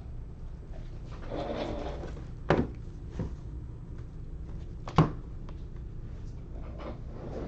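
A short rustle, then two sharp knocks about two and a half seconds apart, with a fainter click between them, over a low steady hum.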